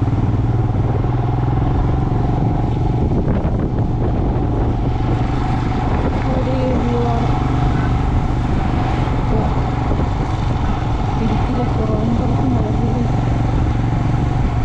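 Motorcycle engine running steadily while riding, with a constant rush of wind and road noise.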